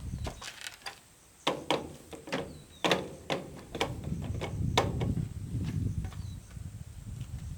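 A run of irregular sharp knocks and clicks, a few of them loud, over a low rumble that sets in about halfway through.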